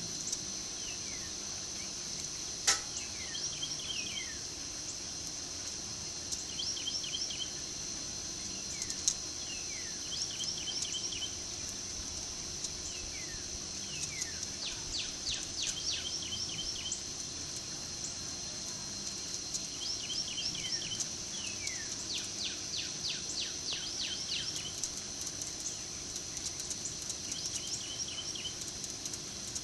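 Steady high-pitched insect drone with birds calling over it: short falling whistles, brief trills and quick runs of chirps, repeating. Two sharp clicks, about three seconds in and again about nine seconds in.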